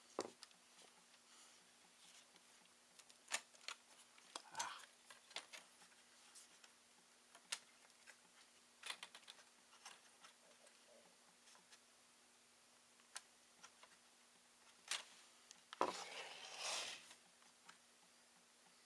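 Sparse small clicks and taps from a screwdriver and a laptop's screws and plastic parts being handled during disassembly, with a short scraping rub about sixteen seconds in. A faint steady hum runs underneath.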